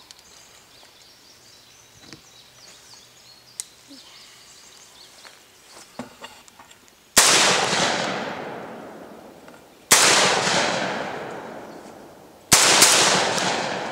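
Three shots from a Derya Lion Trap 12-gauge semi-automatic shotgun firing light low-brass target loads, about two and a half seconds apart, each dying away in a long echo. Before the first shot come several seconds of faint clicks as the gun is handled and readied.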